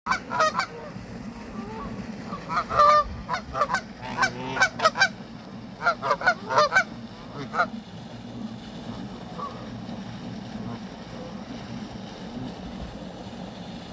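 Canada geese honking: about a dozen short, sharp honks in quick runs over the first eight seconds, then they stop, leaving a steady low background rumble.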